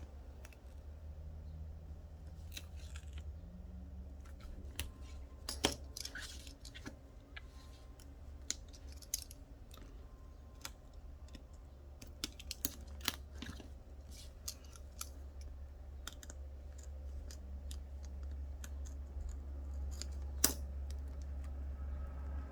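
Small scattered clicks and taps from hands and tools working double-sided adhesive tape onto a phone frame, over a steady low hum. Two sharper knocks stand out, a few seconds in and near the end.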